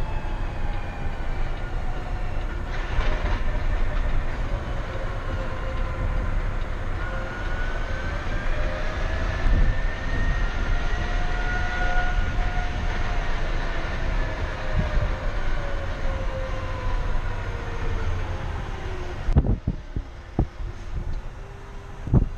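Electric drive motors of the all-electric Peterbilt Model 579 truck whirring while it drives, heard inside the cab over road noise: a whine that slowly rises and falls in pitch with speed. Near the end the sound drops off suddenly and a few thumps are heard.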